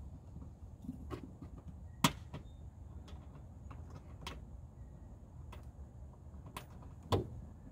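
Scattered light clicks and taps of a bracket and screws being handled and fitted by hand, with two sharper knocks about two seconds in and near the end, over a low steady rumble.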